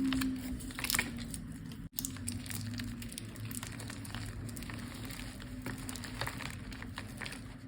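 Block of gym chalk being crushed and crumbled, a dense run of irregular small crunches and crackles. The sound cuts out for an instant about two seconds in.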